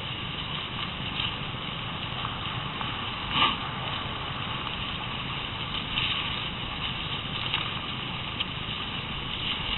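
Cross-country skis sliding over a groomed snow trail: a steady rushing noise with a few light clicks and one louder swish about three and a half seconds in.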